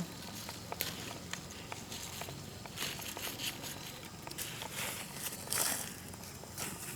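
Irregular rustling and crackling, as of dry leaves being disturbed, with scattered sharp clicks and a louder rustle about five and a half seconds in.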